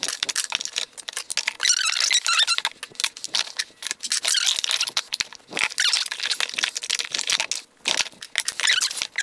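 Plastic makeup compacts and powder jars clicking, knocking and scraping as they are set and slid into a drawer organizer, with a stretch of squeaky plastic rubbing about two seconds in.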